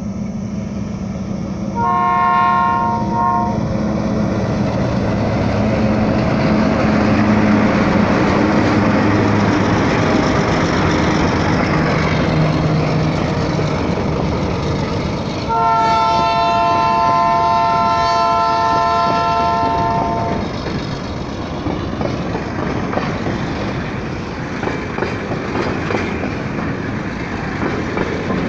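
Diesel freight locomotives passing close. The air horn sounds a short blast about two seconds in and a long blast of about five seconds around halfway, over the steady diesel engine hum. Near the end comes the rumble and clatter of the freight cars' wheels rolling over the rails.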